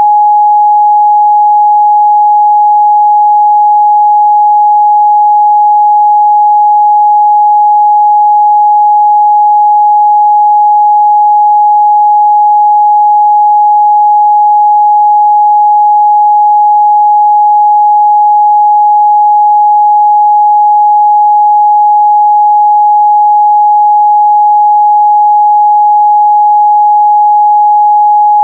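A steady 836 Hz sine-wave test tone, one pure pitch held at constant loudness, as used to check a speaker's or headphones' midrange response.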